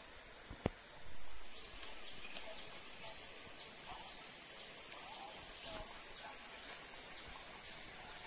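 Forest insect chorus: a steady high-pitched drone that swells louder about a second in, after a single sharp click.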